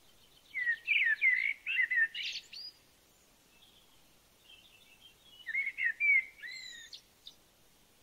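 A small bird singing two short phrases of quick, downward-slurred whistled notes, a few seconds apart.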